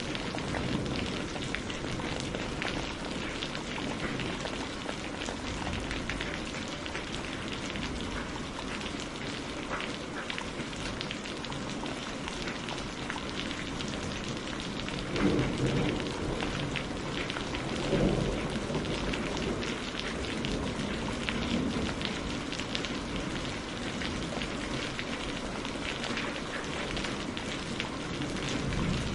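Steady heavy rain with a dense patter of drops. Two brief low rumbles of thunder come about halfway through, a few seconds apart.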